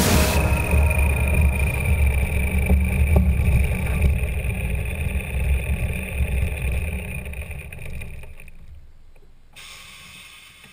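Yak-52's nine-cylinder radial engine running at low power, heard from inside the cockpit as a low rumble with a steady high whine, fading out steadily.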